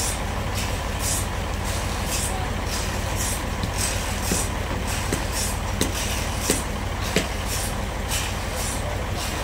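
Sawmill machinery running steadily with a low drone. Hissing bursts come about twice a second, and a few sharp knocks fall in the middle.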